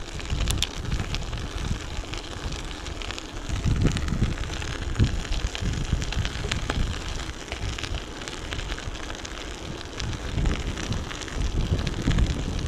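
Schwalbe studded ice tires on a mountain bike crunching and crackling over snow and ice as it is ridden, with many small irregular clicks. Wind buffets the microphone in uneven low gusts.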